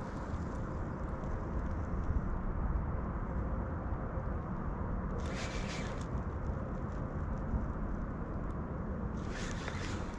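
Steady low outdoor rumble with no clear source, broken by two brief hissing swishes about five and nine seconds in.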